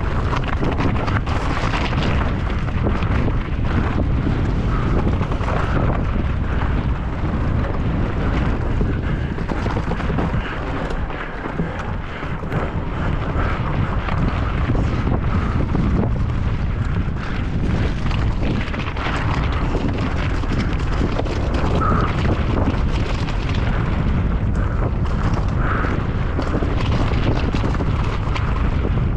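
Heavy wind rushing over the microphone of a mountain bike descending at speed, with a constant rumble and many small knocks and rattles from the bike over rough ground. It eases briefly about eleven seconds in.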